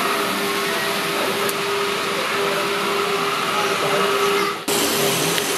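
Steady whir of small electric motors with a constant hum over hall noise, typical of H0-scale model trains running on a layout. The sound breaks off for an instant about three quarters of the way through and picks up again.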